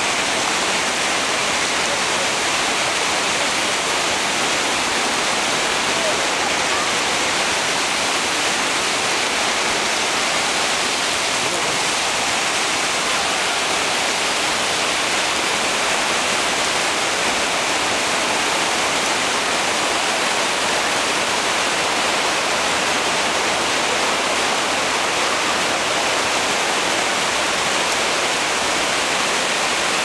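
Steady rush of a rocky stream spilling over small cascades among boulders.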